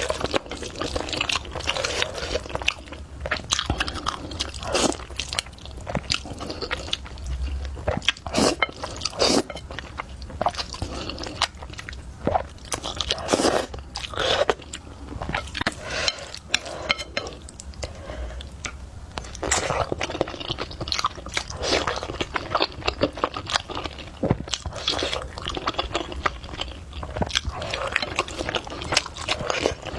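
Close-up eating sounds: a person chewing and biting food, with many short, irregular crunchy clicks.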